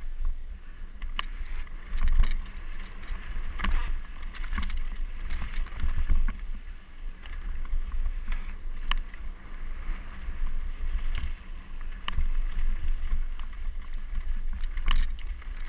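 Mountain bike running fast down a rocky forest trail: a steady rumble of wind and tyre noise on the microphone, broken by scattered clicks and knocks as the bike rattles over stones and roots.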